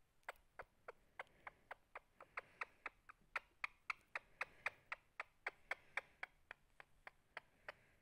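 Indian ringneck parakeet making faint, rhythmic clicks with its beak, about four a second, while its head is scratched.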